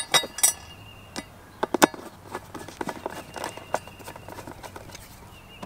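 Sharp metallic clicks and clinks of small screws and washers being handled, most of them in the first two seconds. Then lighter clicks and scrapes follow as a hand screwdriver turns a screw into a boat seat's pedestal mount.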